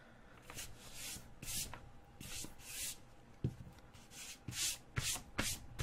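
A hand rubbing and wiping across a cloth desk mat in quick repeated swishes, about two a second, with a couple of small taps. It is wiping up a small spill.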